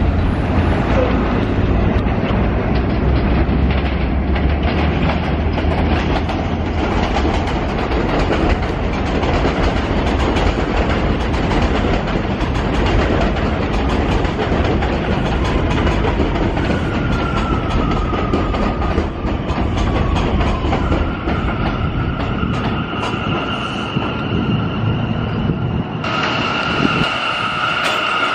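New York City subway train running on an elevated steel line: a loud rumble and clatter of wheels on the rails, heaviest in the first few seconds. From about halfway through, an R179 car's traction motors add a high electric whine that settles into a steady tone and grows louder near the end.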